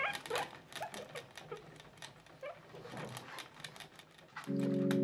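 Skinny guinea pigs giving a few faint squeaks at the start, then crackling rustles as they move and nibble in hay and wood-shaving bedding. A sustained music chord comes in near the end and is louder than the animals.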